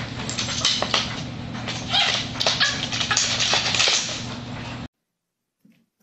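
Wooden baby gate clattering and scraping on a tile floor as a small dog knocks it down and scrambles over it, a noisy rattle full of sharp clicks and knocks. It cuts off abruptly about five seconds in.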